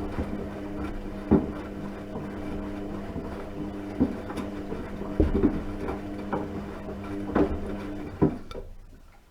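Washing machine running: a steady motor hum as the drum turns, with several sharp clunks from the drum and load. Near the end the motor winds down and stops.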